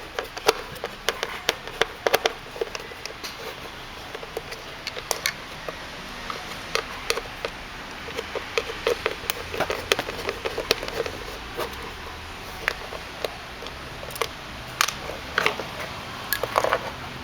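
Irregular clicks and light knocks of hand work on small parts: a screwdriver and the Phillips screws that hold the tricycle's sound board being worked and handled.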